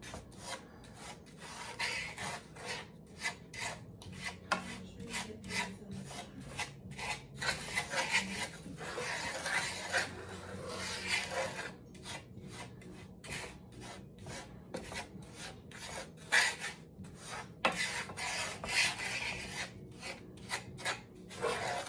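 Wooden spoon stirring and scraping dry white and brown sugar around a skillet: a run of short, gritty scraping strokes, about two a second.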